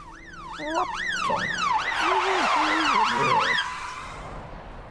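Emergency-vehicle siren wailing rapidly up and down, growing louder about two seconds in, then winding down into one steady tone that fades out near the end.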